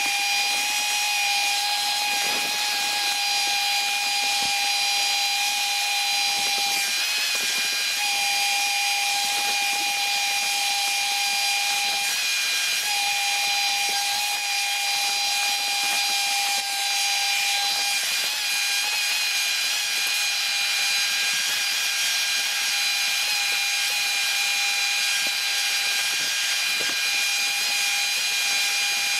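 Handheld leaf blower running at steady full speed. It gives a high whine over a rush of air as it clears leaf and twig debris off a roof, and the whine dips briefly a few times.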